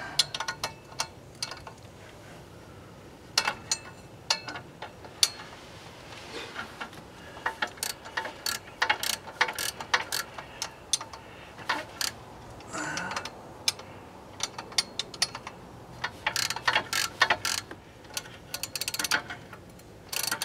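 Ratcheting wrench clicking in quick runs as the flange bolts on an exhaust mid pipe are tightened, with short pauses between runs.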